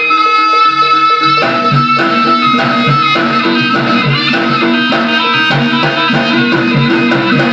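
Javanese jaranan music: a reed pipe holds a long high note while drums and percussion beat a steady rhythm, the drumming coming in strongly about one and a half seconds in.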